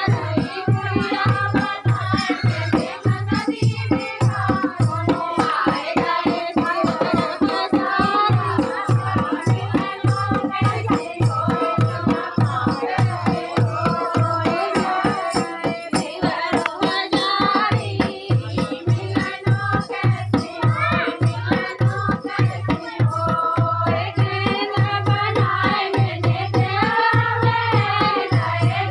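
Singing of a dehati folk dance song over a fast, steady hand-drum beat.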